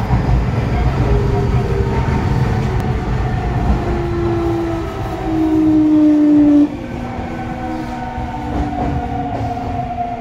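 Toei 6300 series subway train running, its GTO-thyristor VVVF inverter giving off a whine of several tones that shift in pitch in steps and slide slightly downward over a low rumble. The loudest tone cuts off suddenly about two-thirds of the way through and the sound gets quieter.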